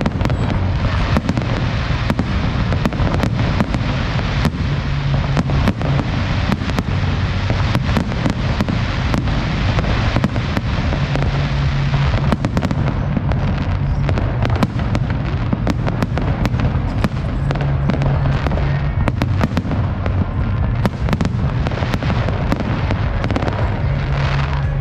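Fireworks exploding in rapid succession, many sharp bangs and crackles close together throughout, over a steady low rumble.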